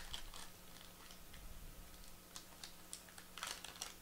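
Faint crinkling and clicking of a foil trading-card pack wrapper and the cards inside being handled as the pack is opened. There is a small cluster of louder rustles about three and a half seconds in.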